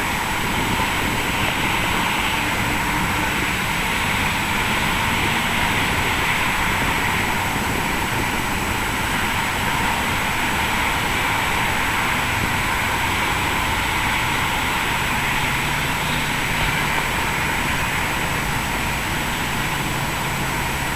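Jet airliner engines running with a steady whine and rush, holding level throughout, with a low hum joining about two-thirds of the way in.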